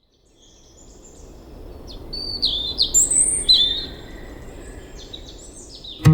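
Woodland birdsong fading in over a low, steady outdoor background: several short, high chirps and whistles, loudest two to three seconds in. An acoustic guitar starts right at the end.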